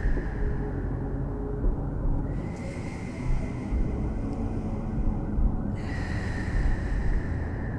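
Low, dense rumbling drone of tense film sound design, with a higher hiss that comes in about two seconds in.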